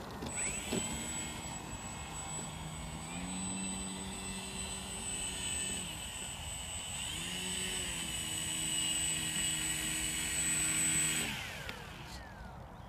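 E-Flite Maule M7 RC plane's electric motor and propeller whining at low throttle as it taxis on grass after landing. The pitch rises about three seconds in, drops near six seconds, rises again a second later and cuts off about a second before the end.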